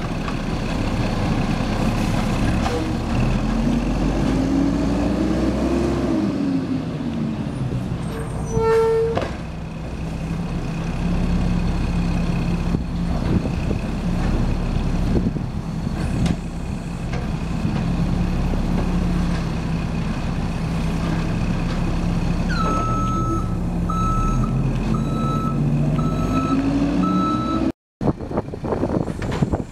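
Automated side-loader garbage truck's diesel engine running, its revs rising and falling as the hydraulic arm works a cart, with a short tone about nine seconds in. Near the end a reversing alarm beeps steadily for several seconds.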